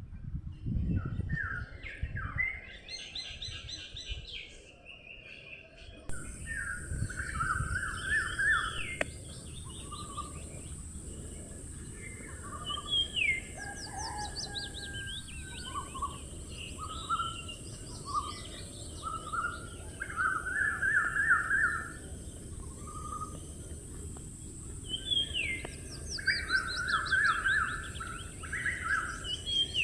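Several wild birds singing and calling over one another in short chirps and rapid trills, over a steady low background rumble. About six seconds in, a steady high hiss joins.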